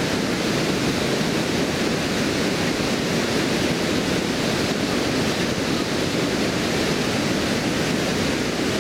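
Water pouring over a stone river weir and rushing downstream: a steady, unbroken rush of falling water.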